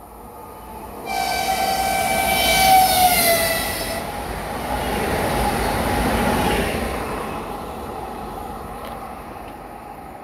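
A passing train sounds its horn for about three seconds, the pitch dropping near the end as it goes by. Then comes the rush of the train passing, which swells and slowly fades.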